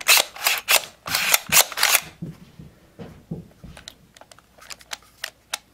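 Plastic-and-metal clacks and clicks of a VFC FN SCAR-L airsoft rifle's controls being worked by hand: a quick run of loud clacks in the first two seconds, then scattered lighter clicks.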